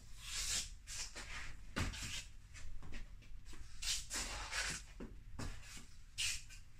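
Home-made hockey stick, a broomstick with cardboard duct-taped to its end, scraping and tapping across a wooden floor as it pushes a tennis ball back and forth: a string of short, irregular scuffs, roughly one or two a second, with a few soft knocks.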